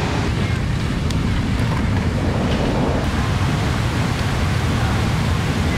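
Steady rushing roar of ocean surf breaking, an even noise without pauses.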